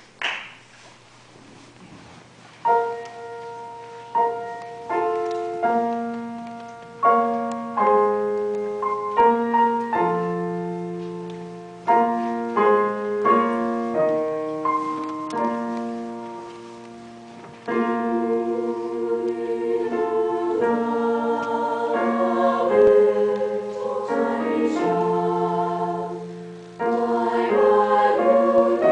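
Piano introduction of single struck notes and chords, each ringing and fading, starting a few seconds in; about 18 s in, a women's choir enters singing sustained notes over the piano accompaniment.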